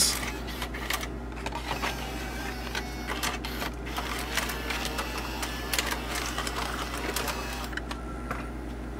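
Ford in-dash six-disc CD changer mechanism loading a disc: small motors running with rapid clicking and rattling of its gears and levers. Near the end a thin steady tone starts.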